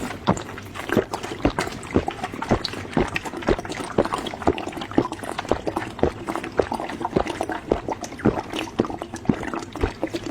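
Close-up wet chewing and lip-smacking of soft braised lamb head meat, a quick irregular run of sticky clicks and smacks several times a second.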